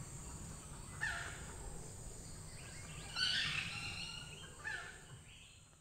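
Forest ambience: a steady high-pitched insect drone with bird calls over it, a short falling call about a second in and a longer run of falling notes from about three seconds in. The sound fades out near the end.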